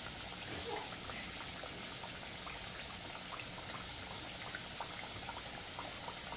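Green plantain slices frying in hot oil: a steady sizzle scattered with many small crackles.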